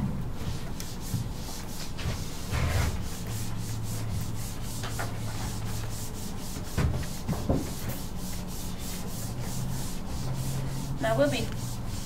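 Felt whiteboard eraser wiped back and forth across a whiteboard in many quick rubbing strokes, over a steady low hum.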